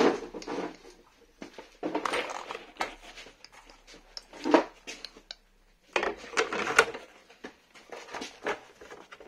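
Hard plastic RC truck body being pressed down onto a Traxxas X-Maxx chassis to latch it shut: several clusters of plastic knocks, clicks and scrapes with short pauses between.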